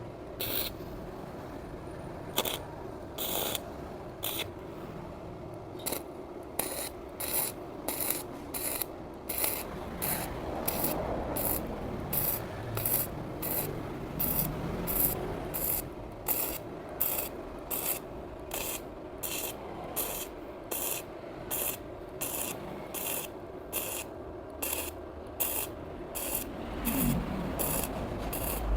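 Sekko MIG 250 gasless flux-core MIG welder stitch-welding stainless steel sheet: short crackling arc bursts as the torch trigger is pressed and released, about one to two a second, over a steady hum.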